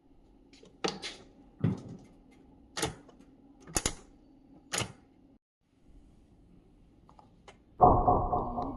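Five sharp clacks, about a second apart, then a louder sound with a steady ringing tone that starts near the end.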